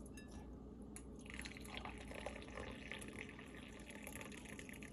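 Green tea poured in a thin stream from a steel ladle through a mesh tea strainer into a glass cup: a faint trickle that starts about a second in.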